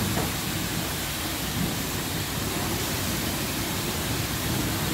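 Steady hiss of a high-pressure car-wash wand spraying rinse water over a car.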